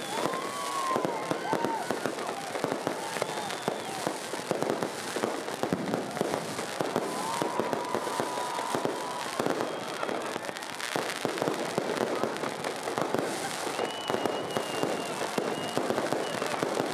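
Fireworks display: a dense, continuous run of bangs and crackles from aerial shells bursting, with a few short whistling tones over it.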